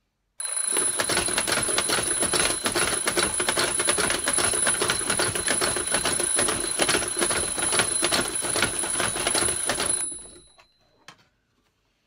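Mechanical twin-bell alarm clock going off: its hammer rattles rapidly against the bells in a continuous loud ring. The ring starts about half a second in and cuts off abruptly about ten seconds in, followed by a faint knock about a second later.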